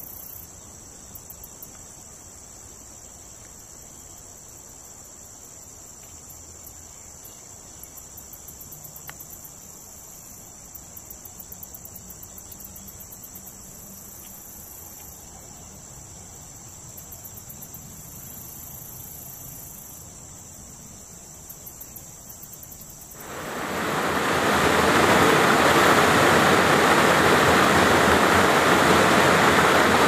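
Insects stridulating: a steady high buzz with repeated trains of rapid, very high chirps. About 23 seconds in it is cut off by a loud, even rushing noise that lasts to the end.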